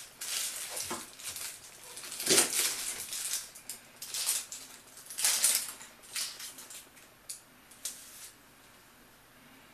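An onion being cut and peeled by hand on a cutting board: irregular bursts of papery crackling and rustling from the dry onion skin, mixed with knife knocks on the board. The bursts are strongest about two and a half and five and a half seconds in, then thin to a few small clicks and die away near the end.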